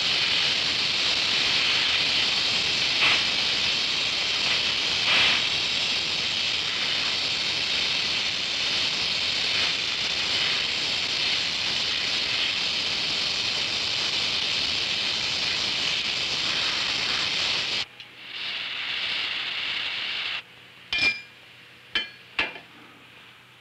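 Oxy-acetylene welding torch flame hissing steadily while a fillet weld is run along a steel T-joint, with a couple of faint pops. The hiss cuts off abruptly about three-quarters of the way through; a short, quieter stretch of hiss follows, then a few sharp clicks near the end.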